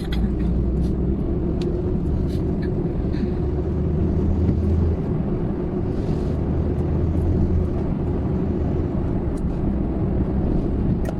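Inside a moving car: steady low road and engine rumble, with scattered light ticks of rain hitting the car.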